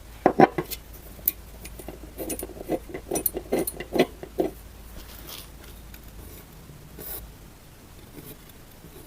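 A table leg being fitted and screwed into a small tabletop: a quick run of small clicks, knocks and rattles in the first half, then a few faint ticks.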